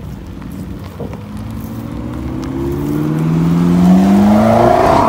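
McLaren supercar's twin-turbo V8 accelerating away, its note rising steadily in pitch and getting louder through the second half.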